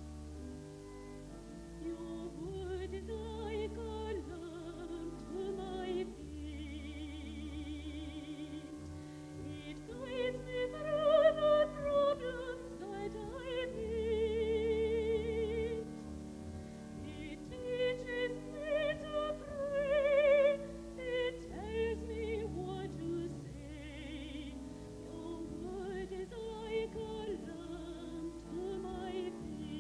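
A woman singing a solo with strong vibrato in long held notes that rise and fall, over a sustained instrumental accompaniment with deep bass notes. It swells loudest twice in the middle.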